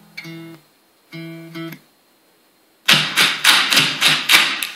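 Music from an iPod played through the speakers of a Philips clock radio dock: two short guitar notes, about a second of silence as the track is skipped, then the next song starts about three seconds in with a fast, sharp beat of about four hits a second.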